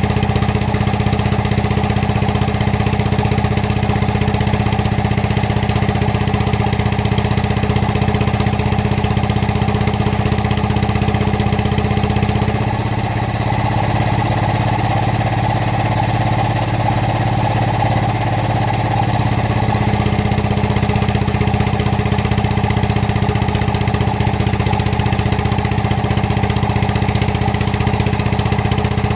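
Excavator's diesel engine running steadily, its note changing for about seven seconds midway before settling back to the same steady running.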